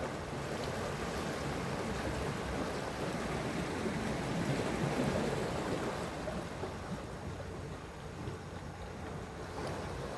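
Sea waves washing in, the rush swelling to a peak about halfway through and then ebbing away.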